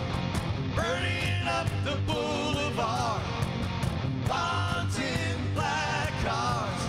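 Live hard rock band playing, a man singing the lead vocal over bass and a steady drum beat.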